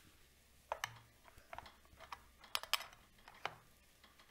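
A string of light, irregular clicks and taps as an eye gaze tablet is handled and its orientation adjusted on a wheelchair mount's device holder.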